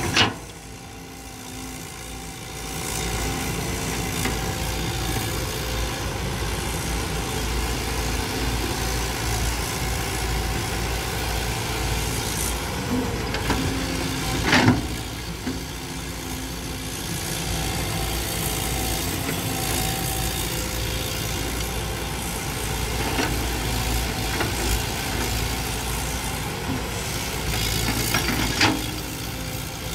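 Cat hydraulic excavator's diesel engine running steadily while it digs dry, clumpy soil. The engine is quieter for the first couple of seconds, then picks up. Three sharp knocks come from the bucket working the ground: at the start, about halfway, and near the end.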